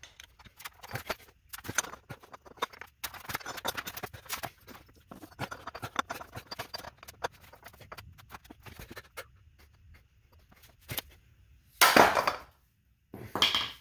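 Steel clinking and knocking as a long custom 41 mm socket tube is slid over a transmission's main shaft and its nut, metal against metal. Two short, loud bursts come near the end.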